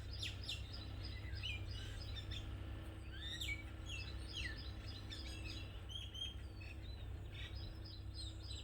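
Small birds chirping repeatedly, quick rising and falling calls over a steady low background rumble.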